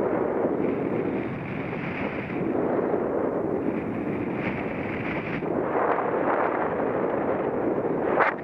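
Wind rushing over the microphone of a camera on a paraglider's risers in flight: a steady buffeting roar that swells and eases, with a brief sharp crackle near the end.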